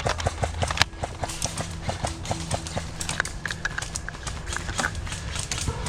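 Airsoft guns firing: a fast run of sharp clicking cracks, about five a second.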